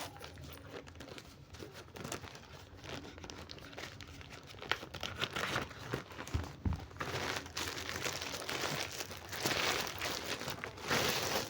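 Packaging crinkling and tearing as a parcel is opened and the bag unwrapped, in irregular handling noises that grow louder about two-thirds of the way in.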